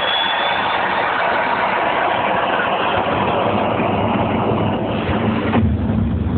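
The jet engine of a jet-powered Renault Twingo running loud: a steady rushing roar, with a thin high whine that fades in the first second. About five and a half seconds in, the sound turns deeper and rumbling as a large flame blasts from the back of the car.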